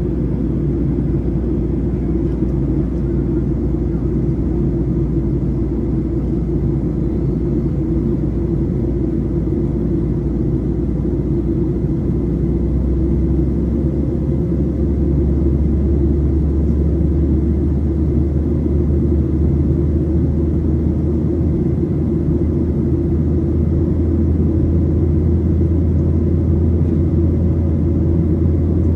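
Steady low rumble of an airplane's engines. It deepens and grows a little louder about fourteen seconds in.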